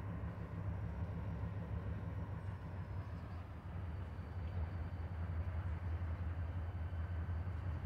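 Diesel locomotive engine running at a distance, a steady low rumble, with a faint thin high tone above it.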